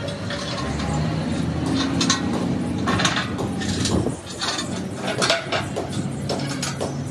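Steel bolts clinking and knocking against a sheet-steel tractor front blade as they are handled and set into the holes of its cutting edge, several sharp clanks over a steady mechanical hum.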